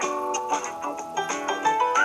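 A Samsung Galaxy S8 ringtone playing: a melody of short, quick notes stepping up and down.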